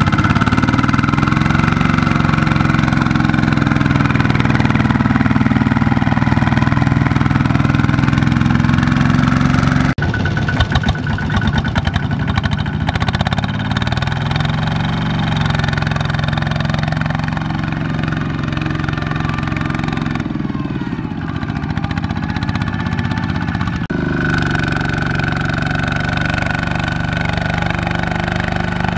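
Single-cylinder diesel engines of two-wheel walking tractors running hard under load as they drag loaded trailers through deep mud, their pitch rising and falling. The sound changes abruptly twice as one tractor gives way to another.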